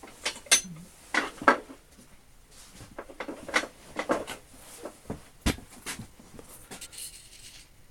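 Metal tools being handled and set down on a bench: a string of clinks and knocks, some with a short metallic ring, busiest in the first couple of seconds and lighter after.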